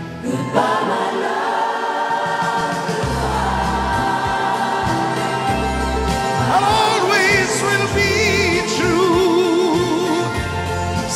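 Live band playing a slow ballad with held chords and a bass line. About six and a half seconds in, voices join, singing with a wide vibrato.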